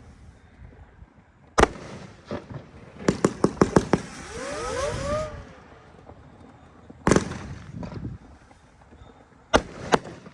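Consumer fireworks going off: a single bang about a second and a half in, a quick string of about six reports a couple of seconds later followed by several short tones that rise then fall, then another bang and two more close together near the end.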